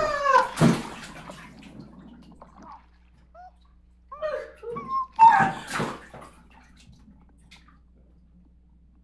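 Water splashing and sloshing as a Mickey Mouse plush is plunged into a swimming pool, with one splash under a second in and a louder one about five seconds in. Short high-pitched squeals come just before and with the second splash.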